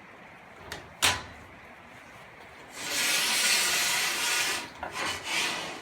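A sharp knock about a second in, then a loud rushing hiss that lasts about two seconds and cuts off.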